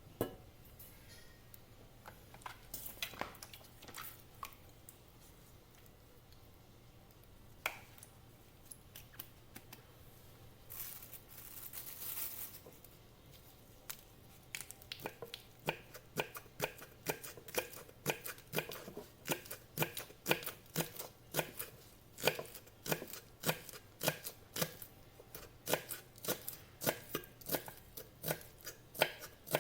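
Chopping food with a knife on a cutting board while preparing elephant ear leaves and ginger: scattered knocks and a short rustle at first, then steady strokes at about two a second from about halfway through.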